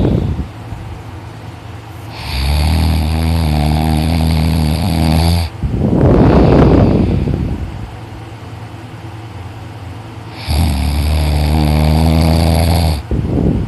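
A teenage boy snoring really loud in his sleep: two heavy snores, each a low, steady-pitched snore of about three seconds followed by a shorter, noisier rush of breath.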